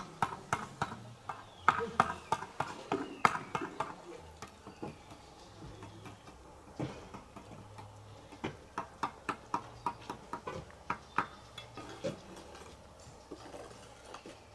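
Horse's hooves clip-clopping: irregular runs of sharp knocks, a busy one for the first few seconds and another a little past the middle.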